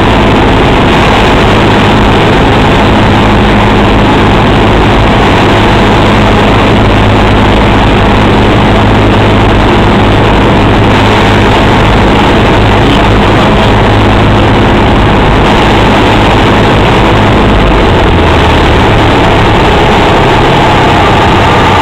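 Single-engine propeller plane's engine and propeller running loud and steady, heard from inside the cabin on landing approach and touchdown, with a dense rush of wind and propeller noise. About three-quarters of the way through, the engine note drops a little.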